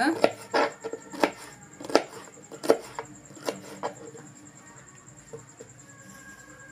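Knife chopping ridge gourd into pieces on a cutting board: about seven sharp knocks at a steady pace, roughly one every 0.7 s, stopping about four seconds in.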